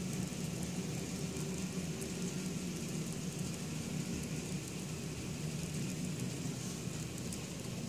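Model freight train rolling past, its wheels running on the rails in a steady rattle with a low hum under it.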